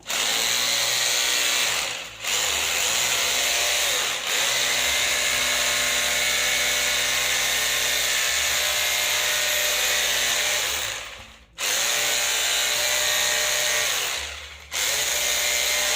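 JCB Plus JKD 3200 corded rotary hammer running in chisel (hammer-only) mode, breaking at concrete. It runs in stretches, released briefly about two seconds in, then again about three quarters of the way through and shortly before the end, each time starting straight back up.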